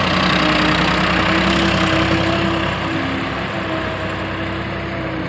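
Farm tractor's diesel engine running steadily under load, pulling a trolley heaped with earth.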